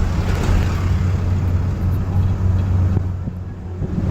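Steady low rumble of a van's engine and road noise heard inside the cabin, dipping slightly near the end.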